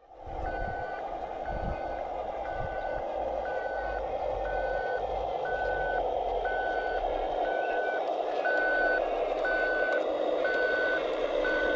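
Reversing alarm of a scale RC construction vehicle beeping steadily, about one beep a second, over a steady motor hum.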